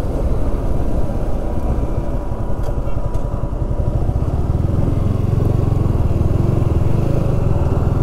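Motorcycle riding along a road: a steady, loud low rumble of engine and travel noise.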